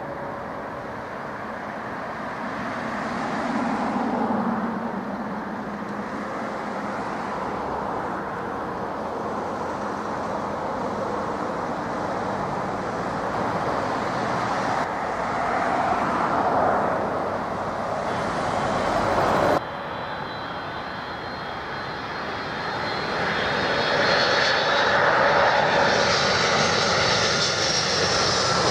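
Jet airliner engines on landing approach: steady engine noise that swells and eases. About two-thirds of the way through it cuts off abruptly, then another airliner's engines grow louder with a high whine toward the end.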